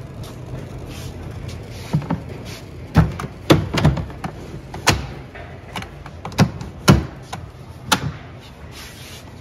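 Hard plastic clacks and knocks from a DeWalt ToughSystem 2.0 rolling tool box being handled, about eight sharp hits spread over several seconds, over a steady low hum.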